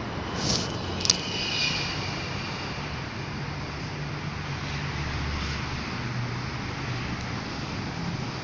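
Steady road-traffic noise, with a sharp click about a second in.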